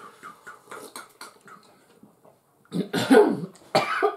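Small quiet clicks and sips, then a person coughing loudly several times, starting near three seconds in.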